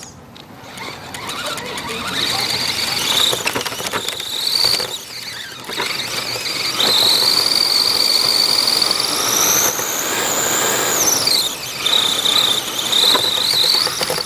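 Radio-controlled car's motor whining as it drives, the pitch rising and falling with the throttle. It builds up over the first couple of seconds, climbs higher past the middle, then drops sharply and picks up again, over a rough hiss.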